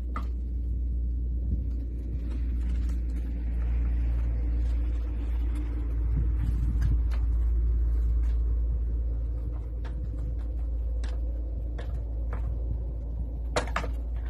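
Peugeot 505 GLD diesel engine idling steadily with a low rumble, and a couple of sharp clicks near the end.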